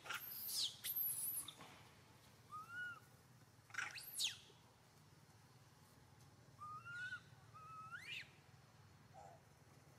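High animal calls: several sharp calls sweeping steeply down in pitch, mostly in the first second and a half and again around the middle and near the end, with a few short rising-and-falling whistles between them.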